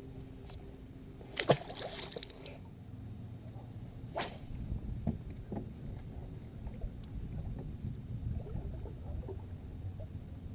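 A sudden loud thump about a second and a half in, followed by about a second of splashing, then a sharper click a few seconds later, over a low rumble of wind on the microphone on a bass boat's deck.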